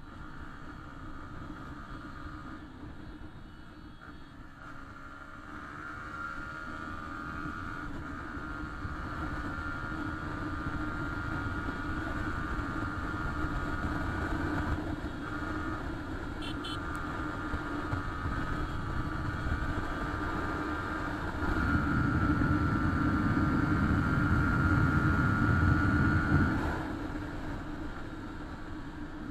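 Yamaha R15 V3's 155 cc single-cylinder engine running as the motorcycle is ridden at speed, growing gradually louder. A louder stretch comes about three-quarters of the way through and drops away suddenly near the end.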